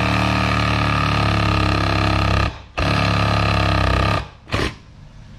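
Chinese cordless reciprocating saw with a Bosch wood blade cutting through a chengal hardwood plank, running steadily and without trouble. It stops briefly about two and a half seconds in, runs again, and cuts off a little after four seconds, followed by one short blip of the trigger.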